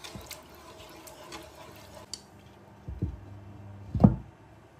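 Wooden spoon stirring a simmering sauce in a frying pan with faint ticks, then a glass pan lid set on the pan: a knock about three seconds in and a louder clunk about four seconds in.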